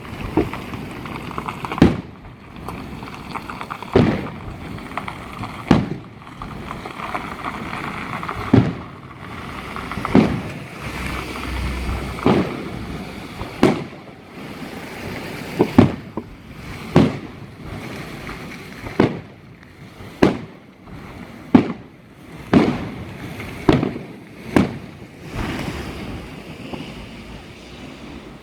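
New Year's fireworks going off: a string of sharp bangs, roughly one every second or two, over steady crackling.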